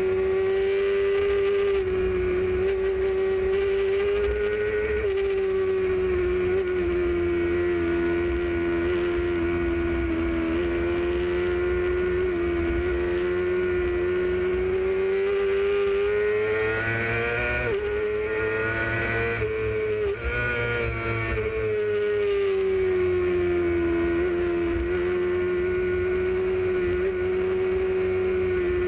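Motorcycle engine running steadily at road speed, its pitch drifting gently up and down with the throttle and climbing and dipping a few times around the middle. Wind rumble on the camera lies underneath.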